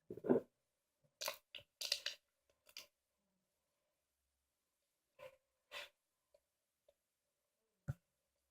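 Homemade slime being handled, giving a few faint, short crackles and squishes spread through, with near quiet between.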